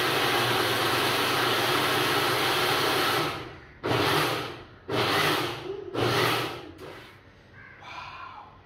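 Electric mixer-grinder with a steel jar blending a thick mango, oat and almond-milk protein shake: the motor runs steadily for about three seconds and winds down, then is pulsed three times in short bursts.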